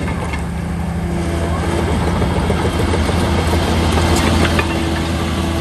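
Shantui DH17C3 bulldozer's diesel engine running steadily at a constant pitch, with a few light rattles in the middle.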